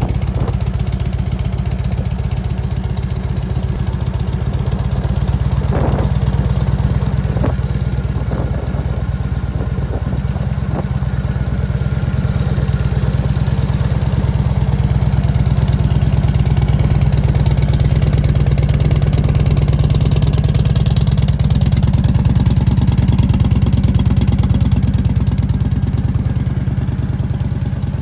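1998 Harley-Davidson Heritage Softail Classic's 1340 cc Evolution V-twin idling steadily through its stock mufflers, with a few light clicks early on. This is the setup where the owner traced an abnormal noise to the inside of the mufflers.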